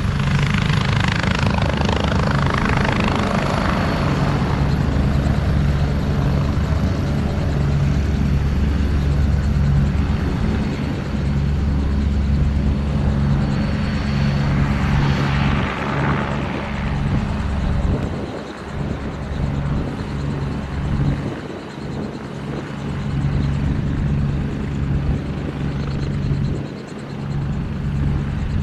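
Agusta A109E Power twin-turbine helicopter taxiing on its wheels with rotors turning. A steady high turbine whine runs over the low, fast beat of the main rotor, with a hiss that swells near the start and again in the middle. The sound grows somewhat fainter in the second half as the helicopter moves off toward the hangar.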